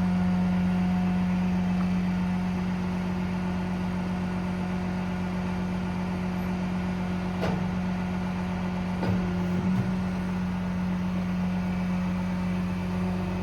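Steady drone of the truck's Paccar PX9 diesel running while the crane's hydraulics are worked, with a couple of brief clunks about seven and a half and nine seconds in.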